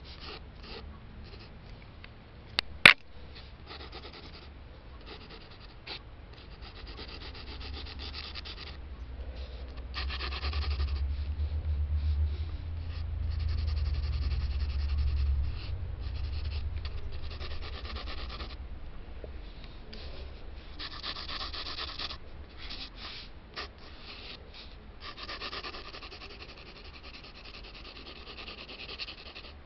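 Pencil lead scratching across paper in short sketching strokes, on and off. A sharp click about three seconds in is the loudest sound, and a low rumble swells from about ten to sixteen seconds in.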